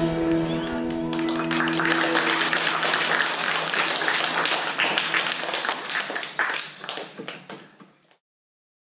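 The band's and singers' final chord rings out for about a second, then an audience applauds; the clapping fades away and cuts off shortly before the end.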